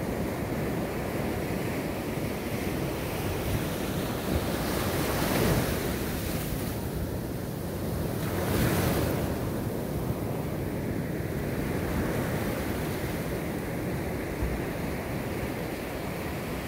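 Heavy ocean surf breaking on a beach, with wind buffeting the microphone. Two waves crash louder, about five and nine seconds in.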